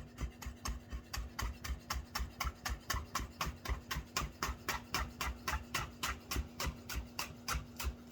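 Knife slicing through a tight roll of basil leaves onto a cutting board, making a chiffonade: quick, even taps of the blade on the board, about four or five a second.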